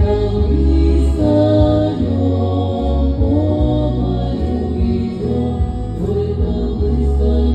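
A women's vocal ensemble singing a Cossack folk song together through microphones, over a musical accompaniment with a strong steady bass.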